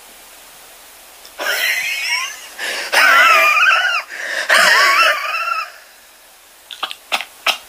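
A person's high-pitched, wheezing laughter in three bursts, the pitch wavering up and down.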